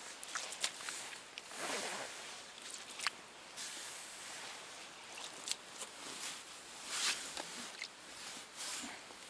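A person moving about and handling gear on snow-covered ice: rustling and crunching, with a few sharp clicks and swishes scattered through.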